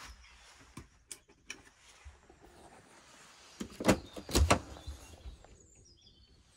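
Caravan's tall slimline fridge-freezer door unlatched and pulled open: two sharp clacks a little past halfway, with lighter knocks around them.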